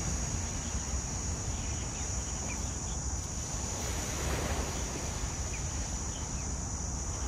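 Wind buffeting the microphone in a steady low rumble, over small waves washing onto a sandy shore. A constant high-pitched hiss runs underneath, and there are a few faint short chirps.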